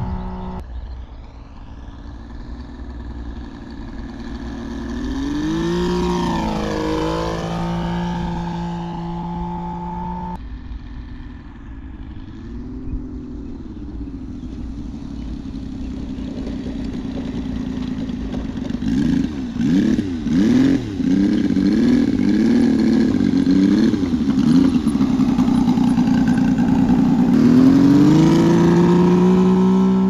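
RC model biplane's engine: it passes overhead with its pitch swinging up and then dropping, and later runs with a wavering throttle before a rising run-up near the end. Low wind noise runs underneath.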